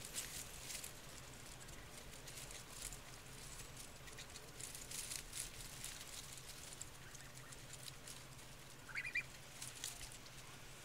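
White domestic goose pecking at a tomato plant: quick faint clicks and leaf rustles as its bill snaps at the leaves and stems. A short high chirp comes about nine seconds in.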